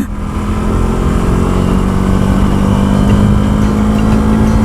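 KTM 390 Duke's single-cylinder engine running at a steady speed under way, its note holding even, over a steady rush of road noise from gravel.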